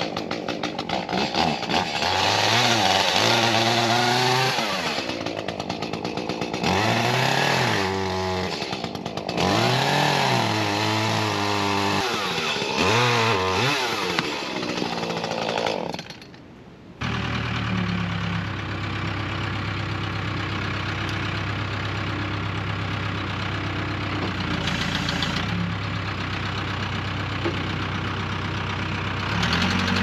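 Chainsaw revving up and down in repeated bursts as it cuts through a tree's root ball, for about the first sixteen seconds. After a short break, a backhoe's engine runs steadily at an even pitch.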